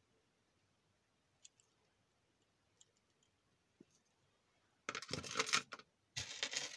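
A few faint clicks of jewelry being handled, then about five seconds in a louder rattling and rustling as a beaded necklace is put into a small plastic box.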